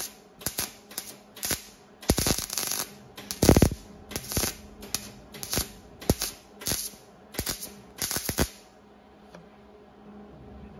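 MIG welder laying a series of short welds on steel tubing: about a dozen brief arc bursts, roughly half a second apart, with one longer weld about two seconds in. The welding stops about eight and a half seconds in.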